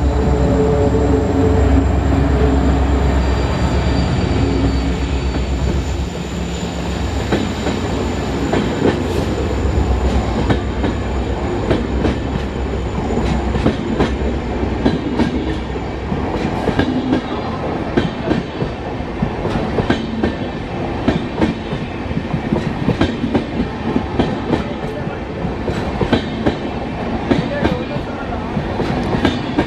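WDP4D diesel locomotive passing close under load, its engine running loud with a high steady whine, while it pulls a passenger train up a banked ghat gradient. About six seconds in, the engine sound gives way to the coaches rolling past with a steady clickety-clack of wheels over the rail joints.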